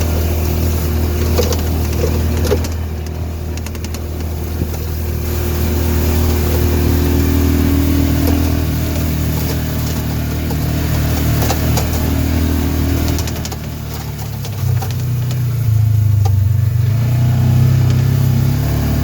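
Side-by-side utility vehicle's engine running steadily as it drives along; about three quarters of the way through its note rises and gets louder as it speeds up.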